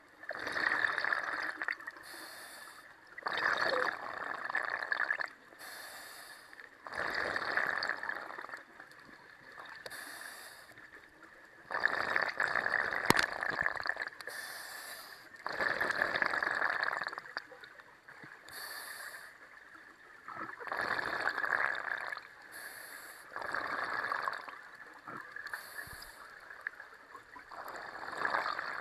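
Scuba diver breathing through a regulator underwater: a short hiss of each inhalation, then a longer gurgling rush of exhaled bubbles. The breaths come slow and a little irregular, every three to five seconds. One sharp click about thirteen seconds in.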